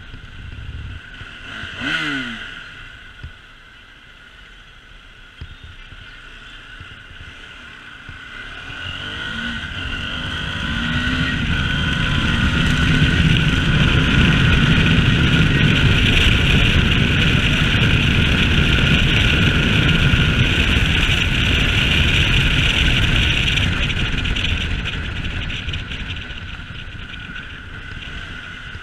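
KTM 390 Adventure's single-cylinder engine under way: the revs drop about two seconds in, then climb as the bike accelerates. A loud steady rush of wind and engine follows at speed and eases off near the end.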